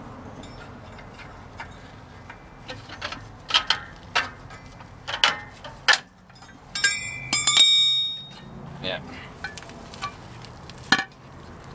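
Steel pry bar and brake hardware clanking and clinking as a drum-brake shoe and its return springs are levered off an air-brake S-cam assembly. The knocks come one at a time, with a short run of ringing metal clinks about seven seconds in.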